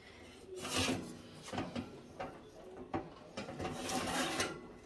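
A metal oven tray scraping and sliding on the oven rack, with several sharp knocks and the rustle of parchment paper as the asparagus spears on it are handled.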